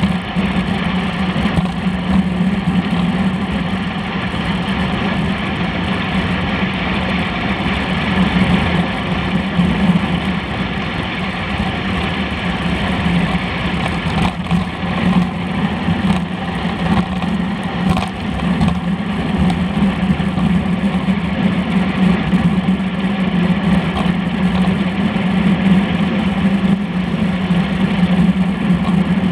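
Steady wind and road noise on a road bike's handlebar-mounted camera while riding at speed: a constant low hum with an even rush of tyre hiss over it.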